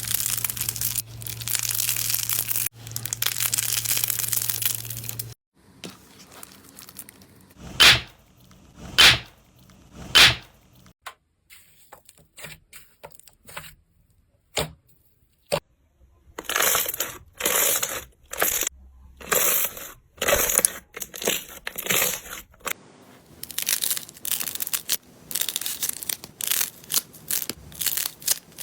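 Slime being squeezed, pressed and poked by hand in a run of short clips: a dense crackling at first over a low hum, then three loud separate pops, scattered small clicks, and repeated short crunchy, crinkly bursts.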